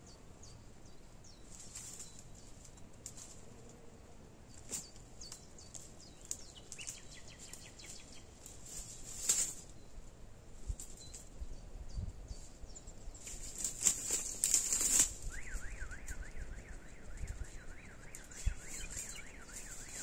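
Dry twigs and brush crackling and rustling as someone pushes through dense shrubs and picks plants, with the loudest snaps about 9 seconds in and around 14–15 seconds. A bird calls repeatedly in the last few seconds.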